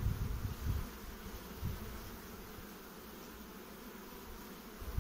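Honeybees buzzing steadily on a brood frame lifted out of the open hive, with a few low thumps in the first second or two.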